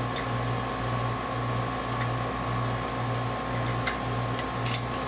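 Wire strippers working the ends of 14-gauge electrical wire: a few faint clicks and one sharper click near the end, over a steady low mechanical hum that throbs a few times a second.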